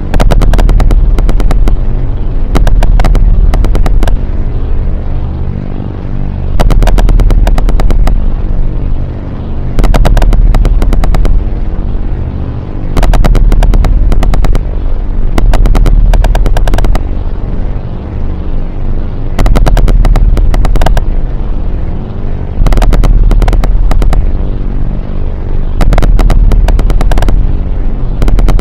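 Harsh noise / power electronics: loud, distorted noise with a heavy low drone under rapid stuttering clicks. It swells and eases in a cycle that repeats about every three seconds.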